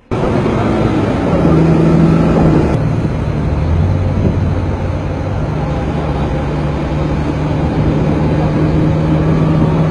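A moving vehicle's engine drone and road and wind noise, heard from on board: a steady low hum under a rushing noise.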